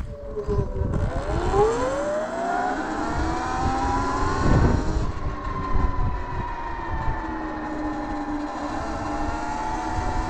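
Sur-Ron X electric dirt bike's motor whine, rising in pitch as the bike pulls away and then holding fairly steady at cruising speed, over a low rumble of wind on the microphone.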